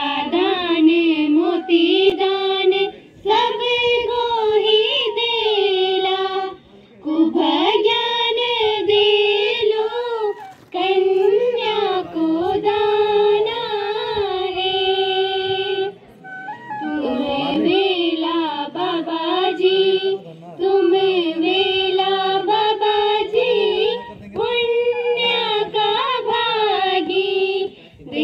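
Girls singing a folk song into a microphone, in melodic phrases a few seconds long with short breaks between, accompanied by a transverse bamboo flute.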